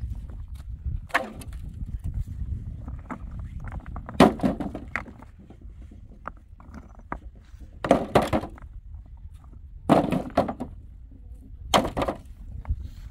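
A series of heavy knocks, five spaced about two seconds apart, each followed by a short crunching rattle, over a low steady rumble.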